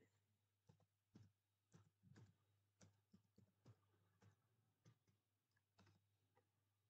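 Faint computer-keyboard keystrokes: irregular clicks, about two a second, as a password is typed, over a low steady hum.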